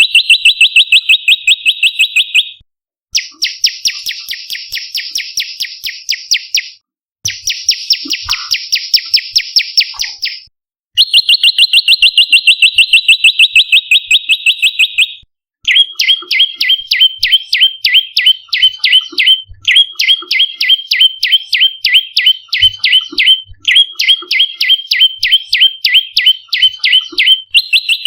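Prenjak (prinia) calling in rapid, machine-like trills of evenly repeated high notes, about ten a second, in bouts of a few seconds with short breaks between them. The bouts vary: a clean high trill, then harsher buzzy trills, then from about halfway a stuttering trill that alternates between two pitches.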